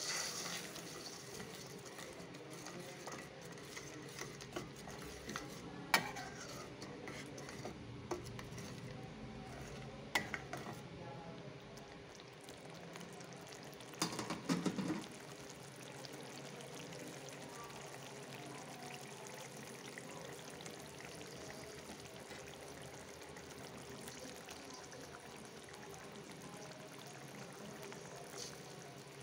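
Spiced curry liquid simmering and sizzling in a wok, with a metal spatula stirring and scraping it. A few knocks of the spatula against the pan stand out, and the loudest cluster comes about halfway through.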